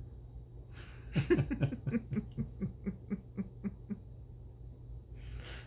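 A person laughing: a run of short 'ha-ha' pulses starting about a second in, quick at first, then settling to about four a second and fading away over about three seconds.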